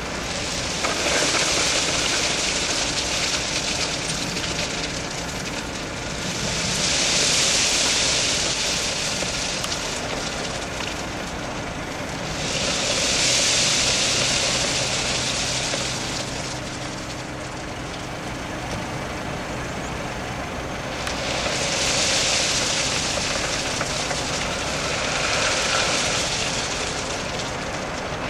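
Heavy truck: a steady low engine rumble, with loud swells of hiss five times, each rising and fading over three to four seconds.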